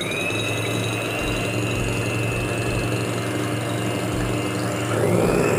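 Electric hand mixer spinning up and running steadily at speed, its steel beaters whisking liquid egg whites in a glass bowl. The motor whine briefly drops and spins back up near the end.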